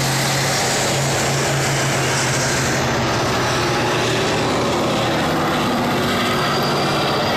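Heavy diesel engines of tracked armoured vehicles driving past in a column: a loud, steady drone over a low hum that dips slightly midway and comes back.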